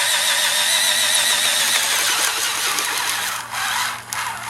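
Hitachi DB3DL 3.6-volt cordless stick screwdriver running on its high speed, driving a self-tapping screw; the motor whine wavers in pitch as it works under load. It lets off about three and a half seconds in, gives a short second burst, then stops.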